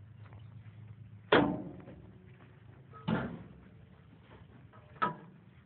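Three sharp knocks, each ringing briefly, about two seconds apart, over a low steady hum.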